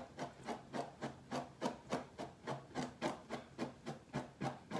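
Quick, rhythmic strokes of a brush scraping through thick natural hair, about three a second, as the hair is teased (backcombed).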